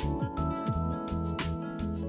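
Background music with a steady beat, sustained chords and a moving bass line.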